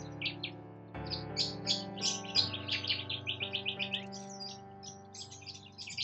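Wild birds chirping, with many short, high chirps and a quick run of them about halfway through, over background music of soft held chords.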